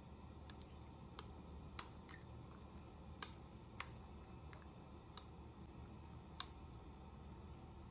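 Metal spoon stirring a thick spice marinade in a bowl, giving light, irregular clicks as it knocks against the bowl, over a faint steady hum.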